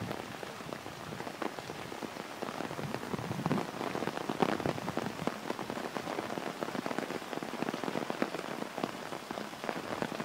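Heavy rain falling, full of many short sharp ticks of drops striking an umbrella overhead.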